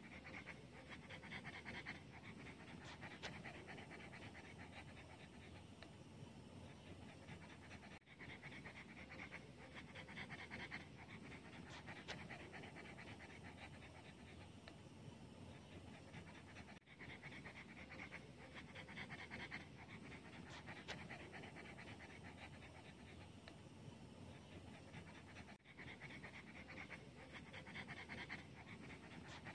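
Pug panting with its tongue out: faint, quick, steady breaths.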